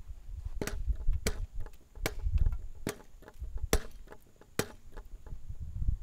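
Six sharp cracks, evenly spaced about one every 0.85 seconds, each with a short ring, over a low rumble.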